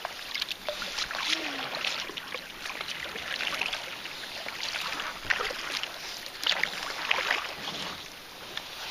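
Kayak paddle strokes in calm lake water: splashing swells every second or two, with water dripping and trickling off the paddle blades in between.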